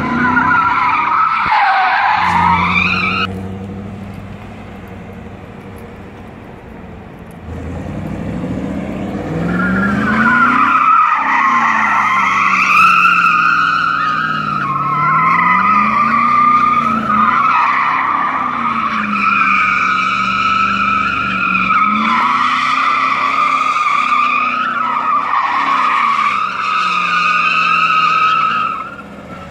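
C4 Corvette's V8 revving as its rear tires squeal in donuts on asphalt, the squeal wavering up and down in pitch as the car circles. After about three seconds the squeal stops and the engine drops to a lower note for a few seconds, then it revs up again and the squealing resumes, cutting off just before the end.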